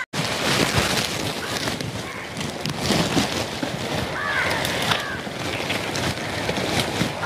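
Wind rushing over the microphone and through the garden foliage, with a crow cawing twice a little past the middle.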